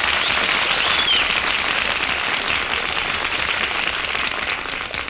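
Live radio audience applauding, heard through an old 1940s broadcast recording with its top end cut off.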